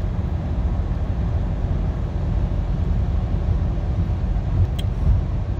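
Steady low road and engine rumble inside a car cabin while cruising at about 70 mph.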